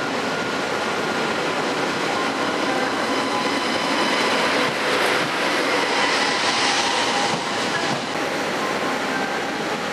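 TGV high-speed trainset running past on the station track, a wide rush of wheel and body noise that swells to its loudest midway and eases off near the end.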